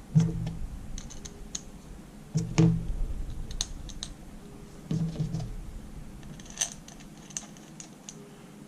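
Small metal screws and a screwdriver clicking and tapping as the screws are started back into an outboard motor's carburetor body, with a few dull knocks about a second apart at first, then scattered light clicks.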